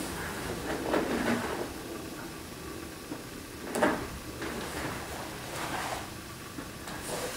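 Movement sounds of a karate kata being performed: four short noisy swishes a second or two apart, the sharpest about four seconds in, as the karate uniform, feet and breath move with each technique.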